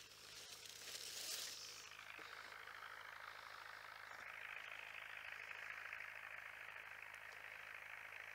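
Faint, steady outdoor ambience with a soft hiss and no clear single source, swelling briefly about a second in.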